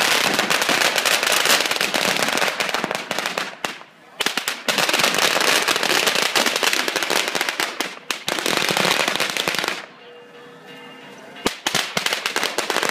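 Strings of red Chinese firecrackers going off in rapid, continuous crackling, with a brief break about four seconds in and a stop near ten seconds. After a lull of about a second and a half, another string starts popping near the end.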